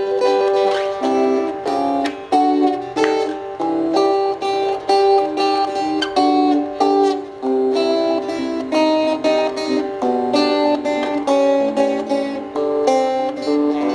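Fingerpicked acoustic guitar playing an instrumental passage, a steady run of single plucked notes ringing over one another, with no singing.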